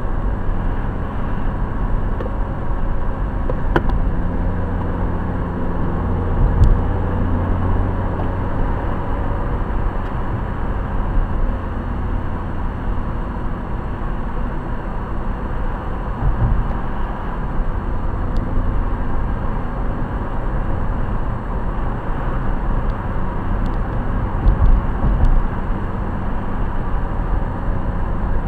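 A car driving, heard from inside the cabin: steady low rumble of engine and tyres on the road, with a few brief low thumps along the way.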